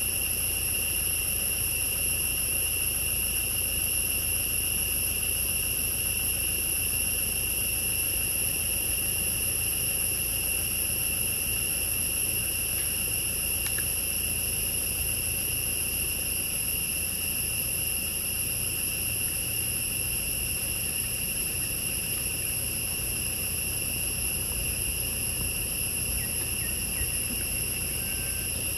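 A steady, unbroken, high-pitched chorus of forest insects buzzing, with a low rumble underneath.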